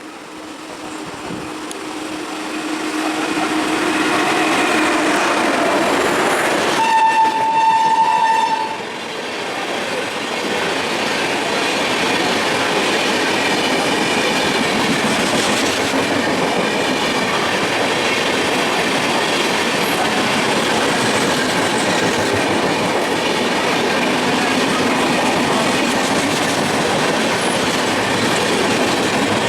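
Indian Railways train approaching and running past at speed. Its locomotive horn sounds one long blast about seven seconds in, then the steady noise of wheels on rails carries on as the coaches go by.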